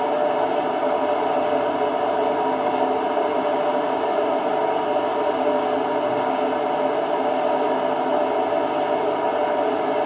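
Indesit IWD71251S washing machine drum spinning at speed: a steady roar with a whir in it, the sound the owner gives as a sign that the drum bearings are starting to go.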